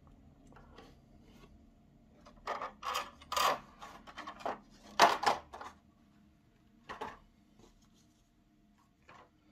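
Clear plastic blister packaging tray crackling and crinkling as it is handled and lifted away, a run of sharp rustles a few seconds in, then a single click later on.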